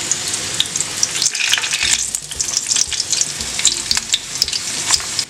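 Dried ancho, pasilla and morita chilies frying in hot oil: a steady sizzle with many sharp crackles as they are turned in the pan with metal tongs.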